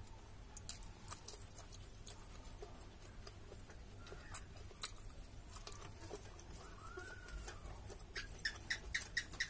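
Soft eating sounds of rice eaten by hand, with scattered small mouth and finger clicks. Near the end an animal gives a quick run of about six clucks.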